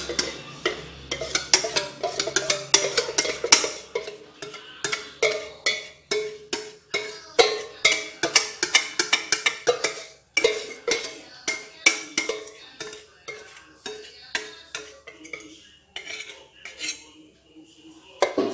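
Utensil clinking and scraping against a mixing bowl as batter is scraped out into a measuring jug: a rapid run of clicks and scrapes with some ringing, thinning out in the last few seconds.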